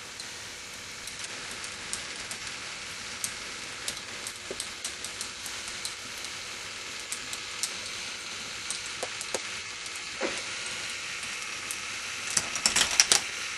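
K'nex ball machine running: plastic balls clicking and clattering along plastic track over a steady mechanical running noise. A quick flurry of louder clacks comes near the end.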